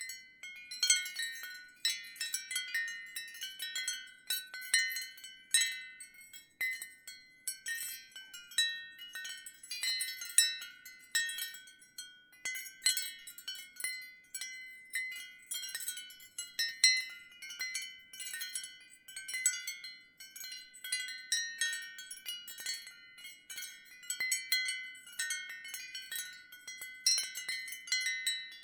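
Ceramic wind chimes tinkling, struck at random several times a second, their high, clear notes overlapping as they ring out.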